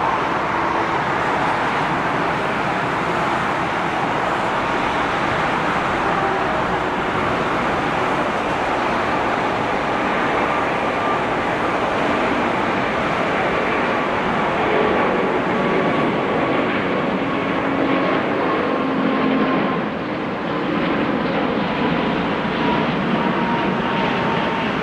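A Singapore Airlines Airbus A380's four Rolls-Royce Trent 900 jet engines at takeoff thrust: a steady, loud roar with a faint whine slowly falling in pitch.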